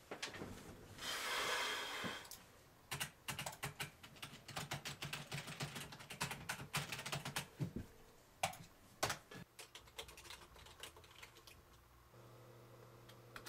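Typing on a computer keyboard: quick runs of plastic key clicks, some keys struck harder than others. About a second in there is a short rustling noise. A low steady hum comes in near the end.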